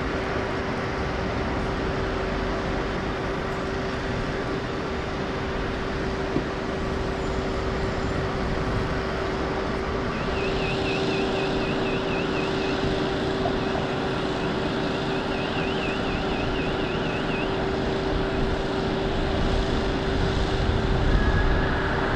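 Emergency vehicles' engines running, a steady drone with a constant hum. A faint, fast-warbling siren sounds from about halfway through for several seconds.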